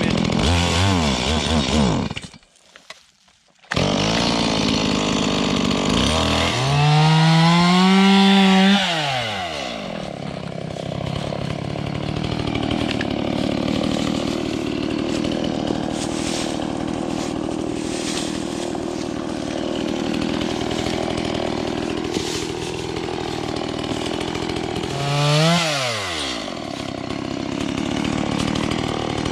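Gas chainsaw revving hard and dropping back twice, running steadily between, as it cuts through wood. The sound cuts out for about a second and a half near the start.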